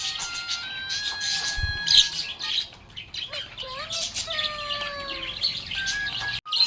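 Budgerigars chirping and twittering rapidly over a steady, stepping backing melody.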